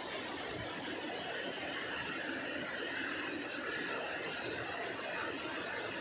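Steady rushing of water cascading over boulders in a rocky waterfall stream, an even, unbroken hiss.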